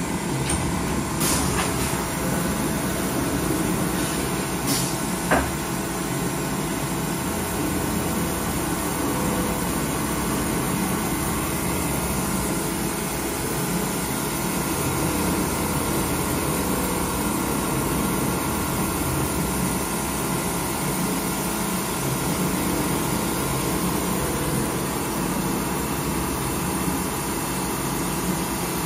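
Mazak VCN-510CII CNC vertical mill (12,000 rpm spindle) cutting metal under flood coolant: a steady mix of spindle whine, cutting noise and coolant spray, with a few sharp clicks in the first several seconds.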